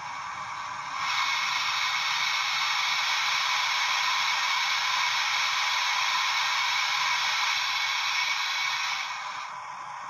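Hornby TTS sound decoder in an OO gauge Flying Scotsman model playing its cylinder-cock effect through the model's small speaker: a steady hiss of steam venting from the cylinder drain cocks. It starts about a second in and dies away near the end, over a fainter steady hiss.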